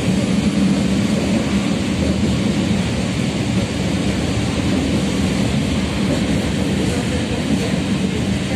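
Tatra KT3UA tram running at speed, heard from inside the car: a steady rumble of wheels on the rails with a low hum.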